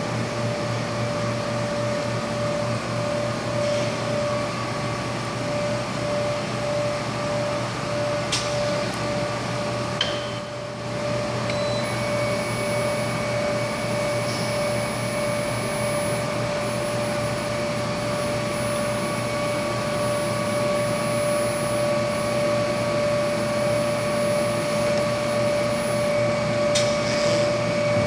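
Induction shrink-fit machine humming steadily. About twelve seconds in, a high-pitched whine joins as the induction coil heats the CAT50 tool holder to expand its bore for the cutter. A few short clicks come around eight and ten seconds in and again near the end.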